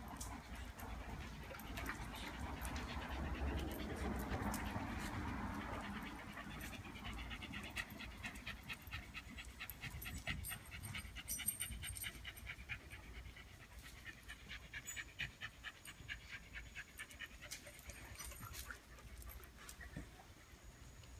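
Formosan mountain dog panting, with quick, evenly repeated breaths in two long spells.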